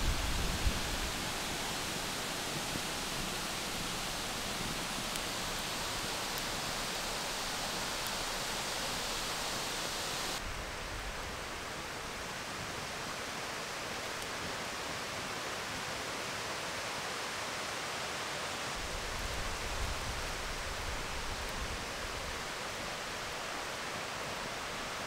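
Steady, even rushing outdoor noise with no distinct sounds standing out in it. Its highest hiss drops away suddenly about ten seconds in, and there is a little low rumble near the start and again around twenty seconds.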